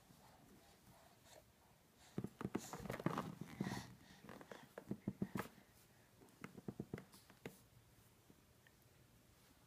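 Light clicks and taps in quick runs, about two to five seconds in and again near seven seconds, as a baby handles a metal spoon.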